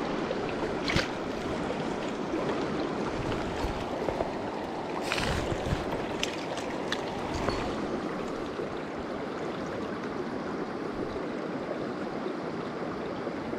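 Stream water rushing steadily over rocks, with a few brief knocks and splashes from a trout being handled in a landing net in the shallows, the busiest a little past the middle.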